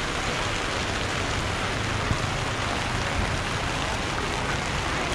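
Steady rain falling, an even hiss that holds at one level.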